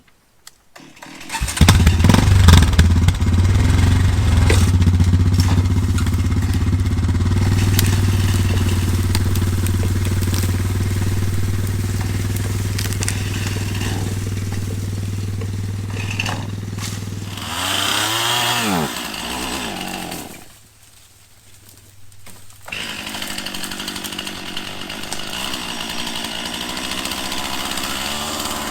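A gasoline chainsaw starts about a second and a half in and runs steadily. Later its pitch falls as it winds down, it goes quiet for about two seconds, then it starts and runs again.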